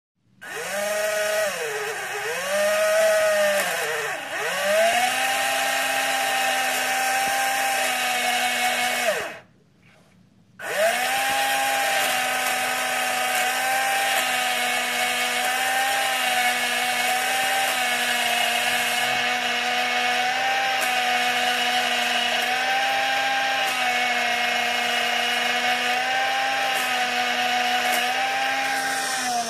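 Small electric motor driving the gearbox of a 1/35 Sherman tank model converted to radio control, running with a steady whine. In the first few seconds its pitch dips and recovers several times; about nine seconds in it stops for a second and a half, then starts again and runs steadily with slight wobbles in pitch.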